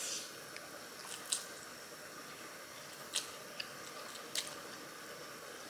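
Close-miked mouth sounds of chewing japchae glass noodles: about five soft wet smacks and clicks, a second or so apart, over a faint steady hiss.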